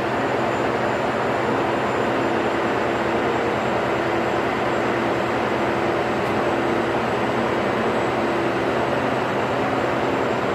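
Steady, unchanging drone of a ship's engine-room machinery running, a dense noise with a faint hum running through it.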